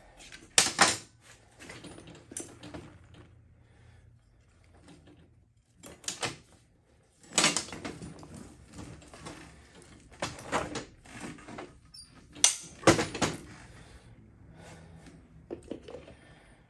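Irregular metal clanks, knocks and chain rattles as a minibike's rear wheel is worked free of the swing arm and its drive chain slips off the sprocket, about a dozen hits with the loudest clusters around the middle and near the end.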